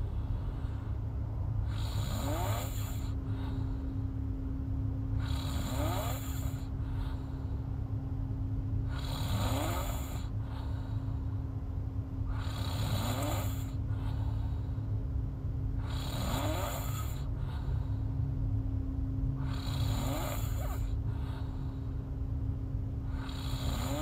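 A woman snoring open-mouthed in her sleep, one snore about every three and a half seconds, over a steady low hum.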